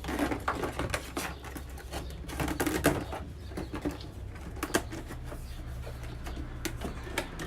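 Plastic sheeting being handled and pushed into place, with irregular clicks, taps and crinkles, over a steady low hum.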